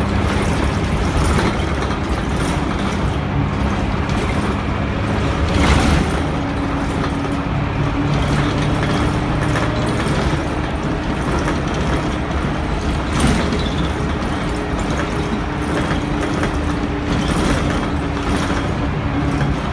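The Cummins 6BT straight-six turbo diesel of a 1999 Dennis Dart SPD bus pulling hard under full-throttle kickdown, heard from inside the saloon over road noise. About six seconds in there is a loud knock and the engine note changes as the Allison automatic gearbox goes up into fourth, after which the bus keeps pulling steadily, with another knock about thirteen seconds in.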